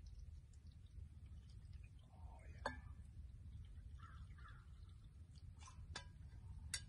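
A few sharp metal clinks from a Stanley vacuum bottle and its steel cup being handled while a hot drink is poured, over a low steady rumble.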